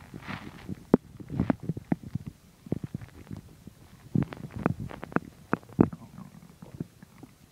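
A person's stomach growling and gurgling while digesting a meal: an irregular run of low gurgles and short pops.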